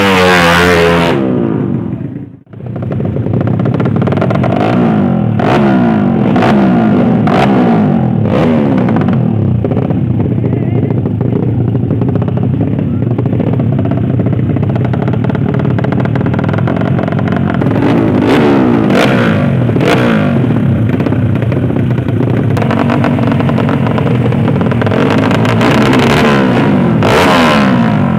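Drag-racing motorcycle engines revving hard and repeatedly, pitch rising and falling, with rising sweeps as they accelerate; the sound cuts out briefly about two and a half seconds in.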